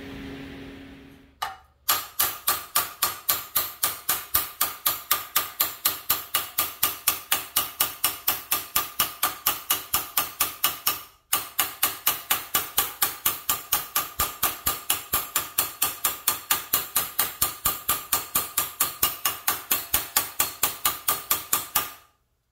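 Body hammer striking sheet metal held on a dolly (hammer-on-dolly), stretching the flat panel so it domes up. The blows come fast and even, about four a second, each with a metallic ring, with a short pause about halfway through.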